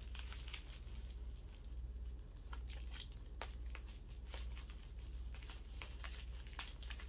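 Plastic bubble wrap squeezed by hand, its bubbles popping in a string of sharp, irregular snaps amid crinkling of the plastic.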